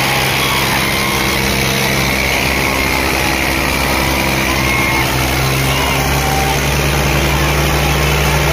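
Diesel tractor engines labouring under full load in a tug-of-war, a steady, loud low drone. The engine note rises slightly a little past halfway.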